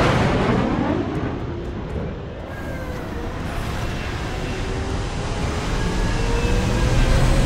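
Film soundtrack of a large jet aircraft's engines in a deep, continuous rumble under dramatic music. The rumble eases about two seconds in, then builds again toward the end, with a faint slowly rising tone.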